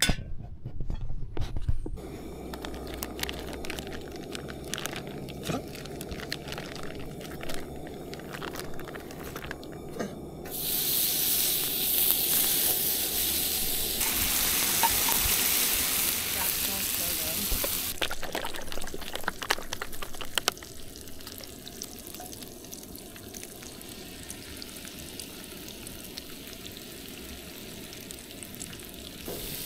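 Breakfast frying in bacon grease in a pan, a loud sizzle from about a third of the way in that lasts several seconds and then settles to a softer hiss. Before it, a run of clicks and knocks.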